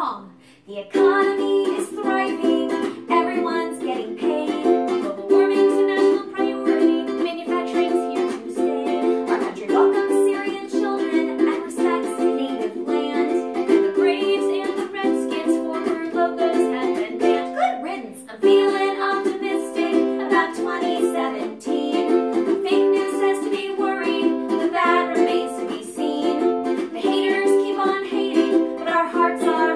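A ukulele strummed in a steady rhythm, with two women singing a song together over it. The playing breaks off briefly about half a second in, then carries on.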